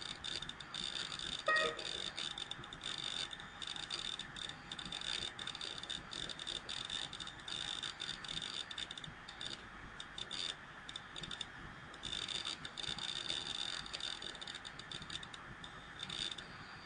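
Faint steady room tone through the narrator's microphone, with a thin high-pitched whine and scattered faint clicks, and one brief soft tone about a second and a half in.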